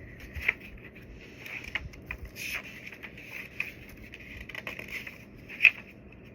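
Handling noise of small cosmetic packaging: rustling and scraping with scattered light clicks, and one sharp click near the end.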